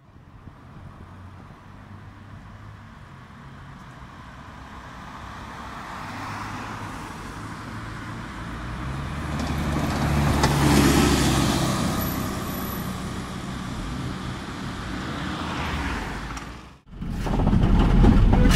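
Ikarus bus's diesel engine, growing louder as the bus approaches and passes, loudest about halfway through and then fading. Near the end, after a sudden cut, the engine runs loud and steady, heard from inside the bus.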